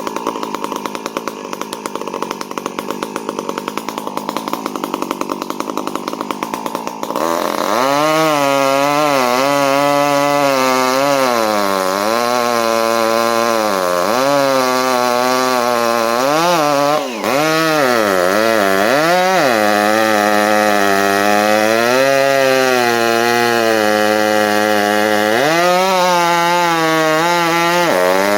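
Two-stroke chainsaw idling for about seven seconds, then opened up to full throttle and cutting through red elm wood, its pitch repeatedly sagging and recovering as the chain loads up in the cut. The throttle drops off for a moment about seventeen seconds in, then it cuts on.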